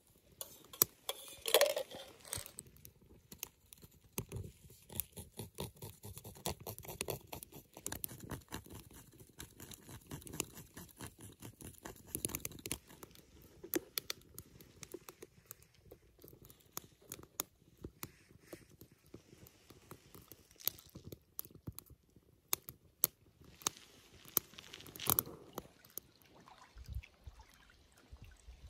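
Twig fire crackling in a Firebox folding wood stove, with scattered taps and scrapes of cups and camp gear being handled. Two louder clatters stand out, about a second and a half in and near 25 seconds.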